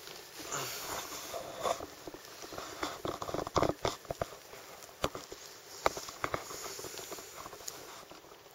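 Plastic tarp and bedding rustling and crackling irregularly as someone crawls out of a tarp bivouac shelter, with a run of sharper crackles in the middle.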